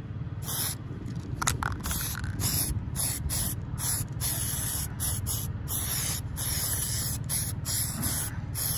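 Aerosol spray-paint can hissing in many short bursts with brief breaks between them, as paint is sprayed over a bullet-marked steel silhouette target.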